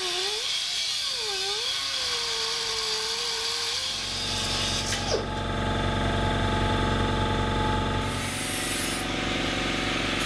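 A power tool running, its pitch wavering and dipping for the first few seconds, then settling into a fuller, steady running sound from about four seconds in, with a brief falling squeal soon after.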